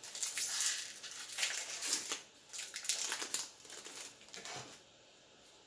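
A Magic: The Gathering booster pack's foil wrapper crinkling in irregular bursts as it is handled and torn open. It goes quiet near the end.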